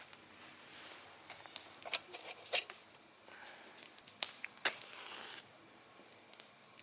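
Objects being handled at close range: a scatter of small clicks and taps, the sharpest about two and a half seconds in, with brief soft scraping or rustling twice in the second half.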